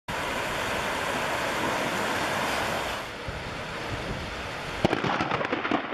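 Steady rushing noise of a thunderstorm's wind and rain. About halfway through it drops to a quieter, duller rush, and a string of sharp clicks comes in near the end.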